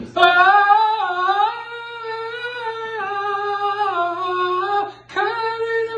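A high voice singing a long wordless held note that wavers a little in pitch, breaking off about five seconds in before starting a second held note.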